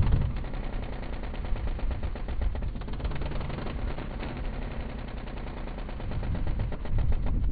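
Engine of a moving vehicle running with a rapid, even pulsing rattle, louder at the start and again near the end.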